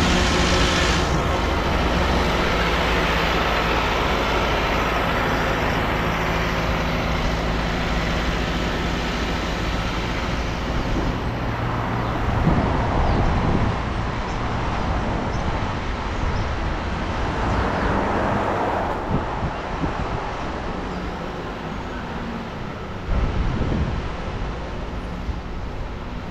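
Engine of concrete-pouring equipment, a cement truck and trailer pump, running at a steady hum, fading out after about ten seconds. Then street traffic passing, with two vehicles swelling by.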